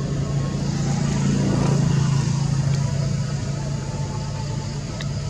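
Steady low engine hum that swells briefly about one to two seconds in, then settles back.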